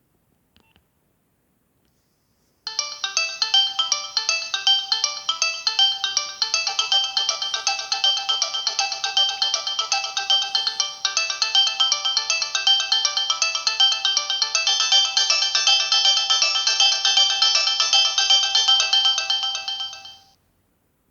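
Nokia 6070 mobile phone playing one of its polyphonic ringtones: a quick, busy melody of many short notes. It starts about two and a half seconds in and fades out shortly before the end.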